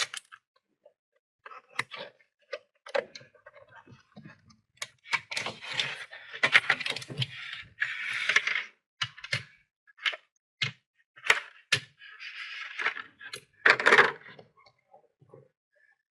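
Toy packaging for a Hot Wheels Mario Kart car set being opened by hand. There are sharp clicks and snaps among bursts of crackling and rustling as the box and its plastic trays are torn and pulled apart. The longest crackling comes in the middle and again near the end.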